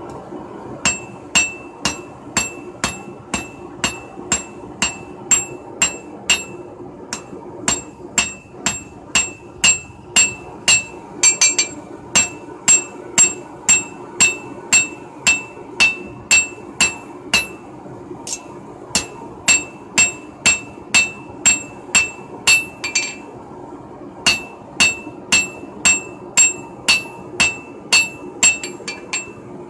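Hand hammer striking red-hot steel held in tongs on an anvil, forging a knife blank in a steady rhythm of about two blows a second, each with a bright metallic ring. The hammering breaks off briefly a few times, and a steady low hum runs underneath.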